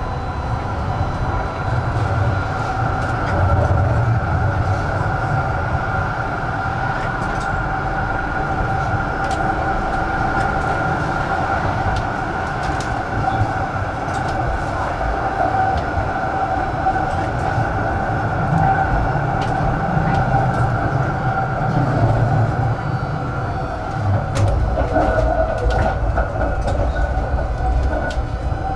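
Tram running along its track, heard from inside: a steady whine over the rumble of wheels on the rails, with scattered light clicks. The low rumble grows heavier near the end.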